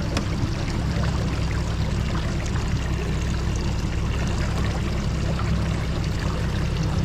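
Steady rushing noise of water and wind around a small fishing boat, heavy in the low end and unbroken.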